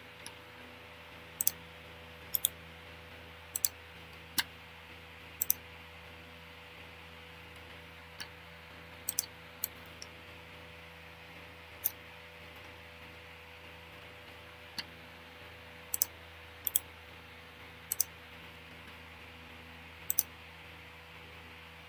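Irregular single clicks of a computer keyboard and mouse, about twenty, some in quick pairs, over a faint steady electrical hum.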